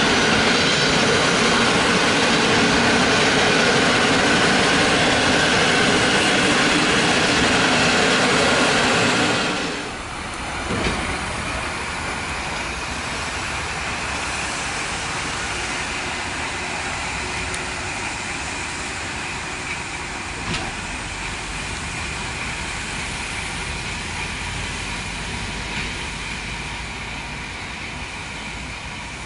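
Passenger coaches rolling past close by, a loud steady rush of wheels on rail. About ten seconds in it cuts to a Polregio electric multiple unit passing more quietly, a steady rolling noise with a thin high whine and a few light clicks.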